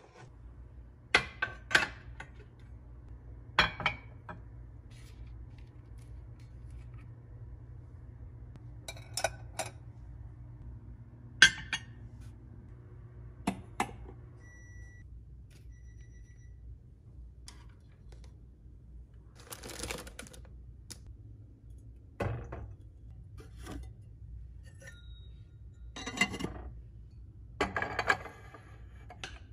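Ceramic mugs, glass canisters and metal fittings being handled and set down: a series of separate sharp clinks and taps, with a few longer rustling scrapes in the second half, over a steady low hum.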